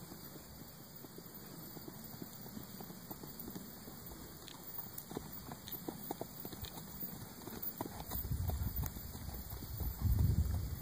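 Tennessee Walking Horse mare walking under a rider on grassy dirt, her hooves giving soft, irregular thuds and clops. A louder low rumbling noise comes in near the end.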